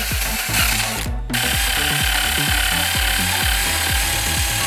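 A handheld rotary tool with a brass wire cup brush runs at speed, scrubbing the aluminium head cover of a Honda CBX125 engine to polish it, with a steady whirr and scratching. Background music with a steady beat plays underneath. The tool's sound cuts out briefly just after a second in, then returns.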